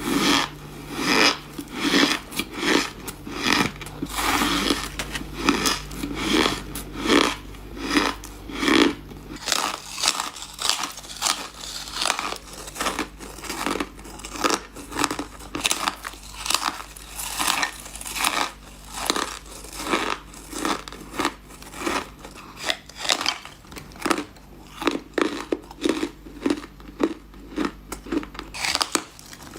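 A person biting and chewing ice close up, crunching it in a steady run of sharp, loud crunches about every half second to a second.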